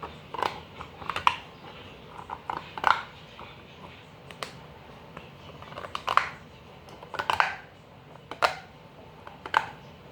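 Plastic fidget toy being worked by hand for ASMR, giving short sharp clicks, one every second or so.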